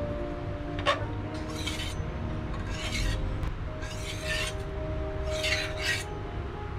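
A steel spatula scraping four times against an iron tawa as it is worked under a puran poli to loosen it, over a low steady rumble; a sharp click about a second in.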